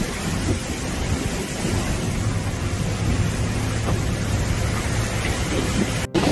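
Strong storm wind buffeting the microphone: a steady, heavy rumbling noise with a deep low end. The sound cuts out for an instant near the end.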